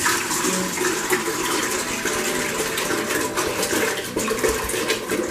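Water pouring in a steady stream from a plastic gallon jug into a granite enamel stock pot.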